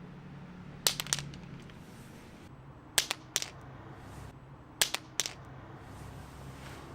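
Compact metal LED flashlight dropped onto a hard surface three times, each drop a sharp clack followed by one or two smaller bounces.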